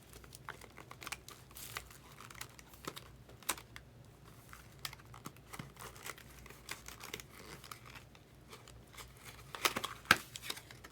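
Quiet handling of packaging: plastic wrap crinkling and cardboard rustling, with scattered light clicks and taps throughout, a little louder near the end.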